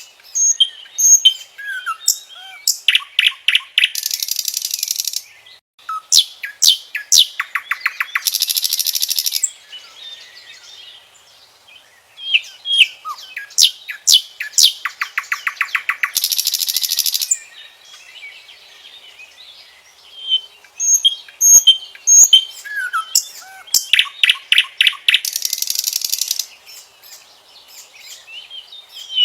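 Common nightingale singing: varied phrases of clear whistles and sharp sweeping notes, broken up by several loud, fast trills of rapidly repeated notes, with short pauses between phrases.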